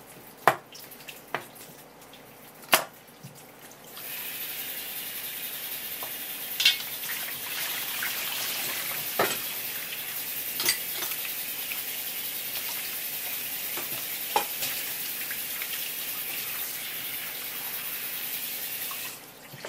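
Water from a flexible-hose kitchen tap spraying onto a wooden cutting board as hands scrub it clean: a steady hiss that starts about four seconds in and stops just before the end, with a few knocks of hands on the board. Before the water comes on there are a few sharp knocks.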